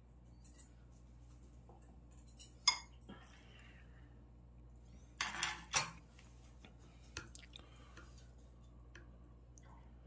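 Metal spoon and chopsticks clinking against a ceramic bowl of rice in green tea water: a couple of clinks, then a louder cluster of clinks about halfway through, and a few fainter ticks after.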